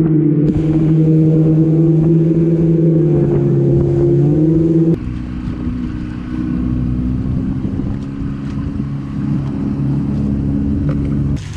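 Outboard motor of an inflatable rubber raiding boat running steadily under way, with wind on the microphone. About five seconds in the engine note changes abruptly to a quieter, lower one, with more low wind rumble.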